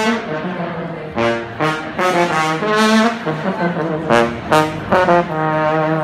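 Balkan brass band of trumpets and trombones playing loud, punchy phrases of short accented notes.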